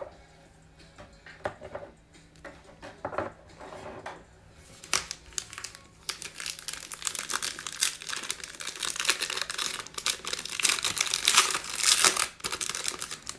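A few light clicks, then the foil wrapper of a Panini Mosaic basketball card pack crinkling steadily as it is handled and torn open, loudest near the end.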